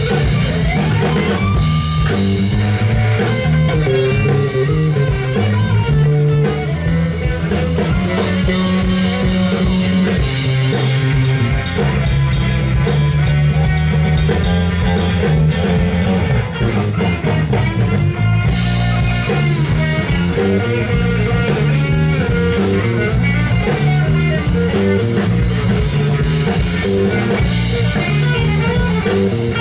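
Instrumental rock played live by an electric guitar, electric bass and drum kit, with the guitar playing melodic lines and a note bend about a second in over steady bass and drums.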